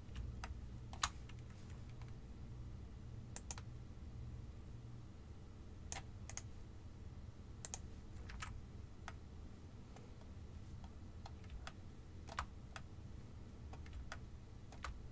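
Computer mouse and keyboard clicks, single and in quick pairs, scattered irregularly about once a second over a low steady hum.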